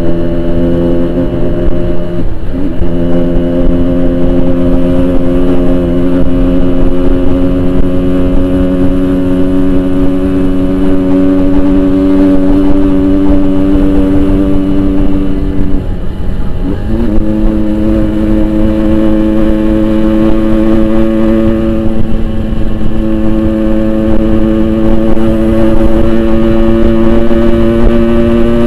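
Yamaha RX-King 135cc single-cylinder two-stroke motorcycle running through a Boban aftermarket exhaust under steady throttle on the road. Its pitch holds and slowly climbs, dipping and resettling twice: about two seconds in and again about sixteen seconds in.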